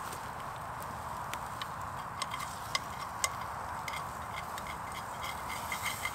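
Bacon sizzling steadily in a small frying pan over a wood fire. From about a second in, a spork scrapes and taps against the pan in scattered clicks to free bacon that has stuck to it, more often near the end.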